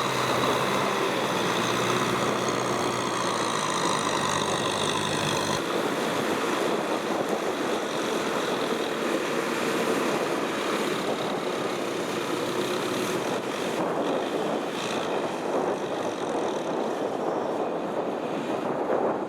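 Tractor engine running steadily with an even pitch, then, about five seconds in, an abrupt change to a rougher, noisier rush without a clear engine tone.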